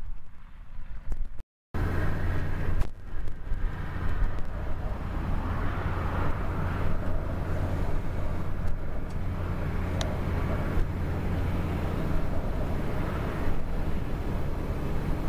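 Claas tractor engines running steadily under load while ploughing: an even low drone. It opens with a second and a half of uneven rumbling from a tractor and manure spreader at work, then cuts off abruptly before the drone starts.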